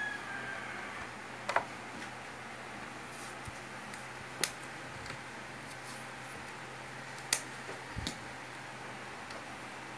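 Hands working speaker wire and small tools: a handful of sharp clicks and taps spread across the stretch, over a steady low hum.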